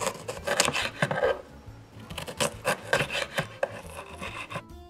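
Kitchen knife slicing a green bell pepper into thin julienne strips on a wooden cutting board: a run of irregular crisp cuts, each ending in a tap of the blade on the board.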